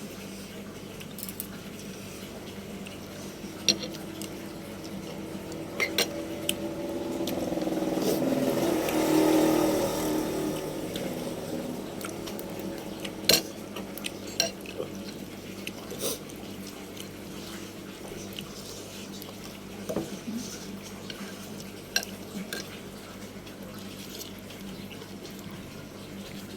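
Kitchen clatter: scattered clinks and knocks of bowls, pots and utensils while noodle soup is prepared. A louder sound swells and fades about eight to ten seconds in.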